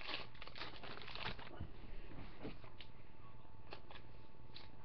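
Faint rustling and a few light clicks over a low steady hum.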